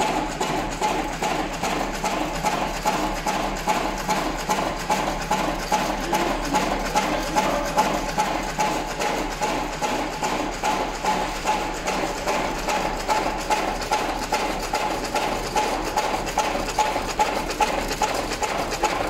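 Electric auger cigarette tube filling machine running continuously: an even rhythm of mechanical clacks, a few per second, over a steady motor whine.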